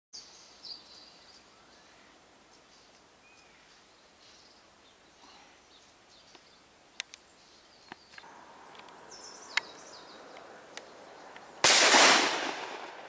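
A single shotgun shot, loud and dying away over about a second, near the end. Before it there are faint high bird chirps and a few small clicks.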